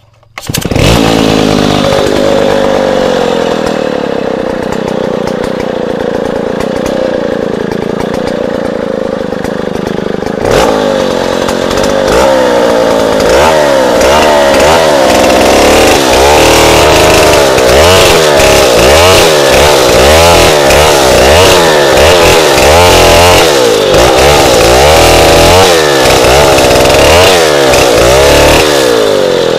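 Stihl 070 two-stroke chainsaw catching about half a second in and running at a steady idle. From about ten seconds in it revs up and down over and over as it rip-cuts a squared log lengthwise into planks.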